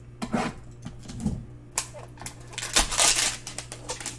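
Cardboard hanger box of trading cards being torn open and its cellophane-wrapped pack pulled out and handled: a run of sharp crackles and rustles, densest about three seconds in.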